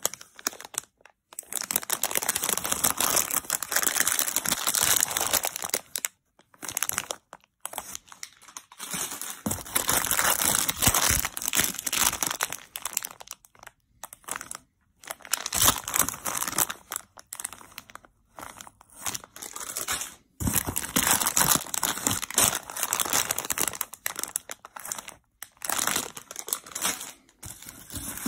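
Plastic candy bags crinkling as they are handled, in repeated bursts a few seconds long with brief pauses between.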